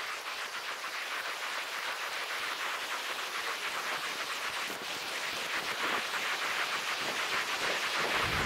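Rushing water of a waterfall and its rapids, a steady hiss that grows slowly louder as the paddleboard nears the falls.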